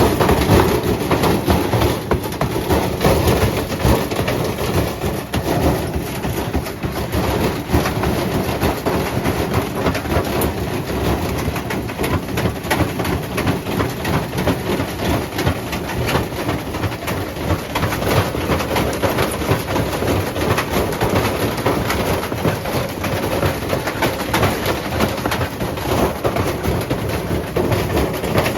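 Servis washing machine running with a brick tumbling in its drum: a loud, continuous clatter of rapid knocks and rattles.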